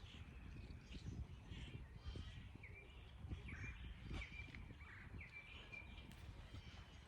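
Songbirds chirping in short, repeated calls over a low, steady outdoor rumble, with a few faint clicks.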